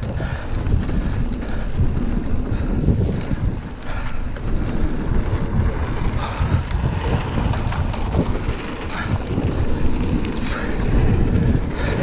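Wind buffeting the microphone on a fast mountain-bike descent, over the rumble of knobbly tyres rolling on a dry dirt-and-gravel trail. Short rattles and crackles of grit and the bike come through, thickening near the end.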